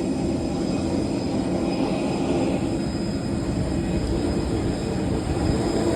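Steady low mechanical rumble with a droning hum, with no break or change in level.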